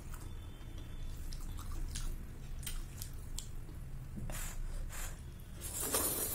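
Small wet clicks and smacks of chopsticks working a plate of slippery noodles, then a loud slurp as a mouthful of noodles is sucked in near the end.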